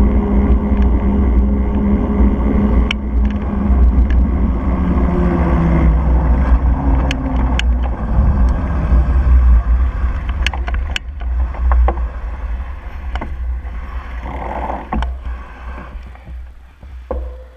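Wind buffeting and road noise from a bicycle riding along a road, picked up by a camera mounted on the bike, with a low hum that falls in pitch over the first half and scattered sharp clicks and knocks. The noise dies away near the end as the bike slows to a stop.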